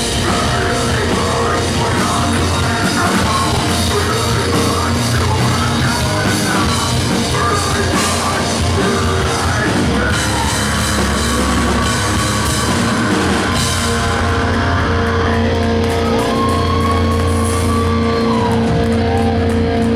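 Live post-hardcore band playing loud: distorted guitars, bass and drum kit under sung and shouted vocals. In the last few seconds the cymbals thin out and a held note rings on steadily.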